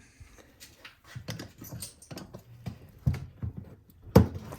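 Irregular small clicks and knocks of tools and parts being handled at a snowblower carburetor, with one louder knock about four seconds in.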